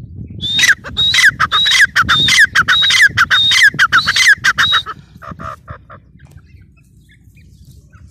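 Gray francolin calling: a loud, rapid run of shrill repeated notes, each starting high and dropping sharply in pitch, for about four seconds, then a few fainter notes before it stops.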